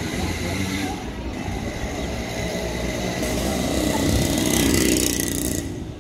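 A small motorcycle passing close by on the street, its engine growing loudest about four to five seconds in and then dropping away, over general street noise.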